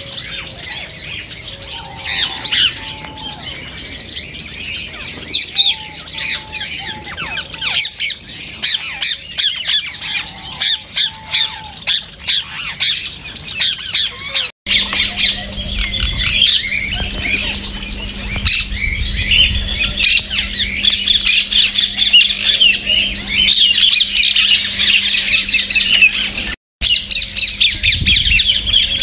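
A flock of Indian ringneck parakeets screeching in an aviary: a constant run of sharp, shrill calls. After a short break about halfway, the calls overlap into a denser chorus over a low rumble.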